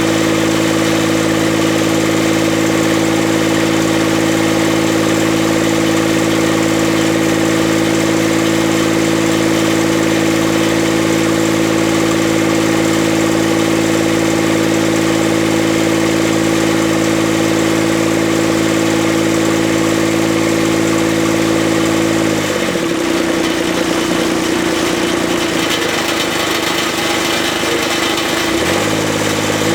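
Kubota D722 three-cylinder diesel engine running steadily on test after an injector pump O-ring repair. About three-quarters of the way through its note changes, and near the end the pitch rises as the engine speeds up.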